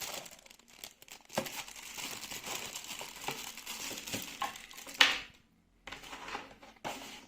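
Plastic packaging crinkling and rustling as a USB cable is handled and unwrapped, with one sharp, louder crackle about five seconds in.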